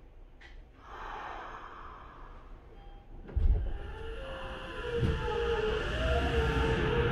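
Tokyo Metro 7000 series train pulling away, heard inside the car. There is a short hiss about a second in and a jolt at about three and a half seconds. Then the Mitsubishi IGBT-VVVF inverter and traction motors start up, several whining tones slowly rising in pitch as the train gathers speed.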